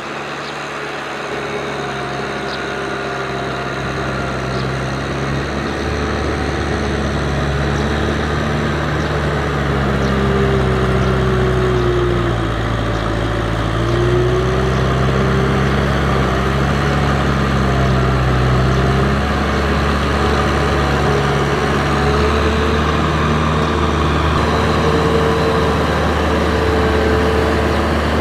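Kubota M6040SU tractor's four-cylinder diesel engine running under load while pulling a rotary tiller through flooded paddy mud, growing louder as it comes closer. About halfway through its pitch sags briefly and then picks back up as the engine takes the load.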